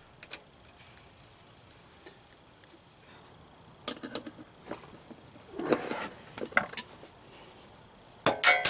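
Short metallic clinks and knocks from hand tools and loose bolts as the bolts come out of an ATV transmission cover and the cover is worked loose. The loudest, sharpest clatter comes near the end.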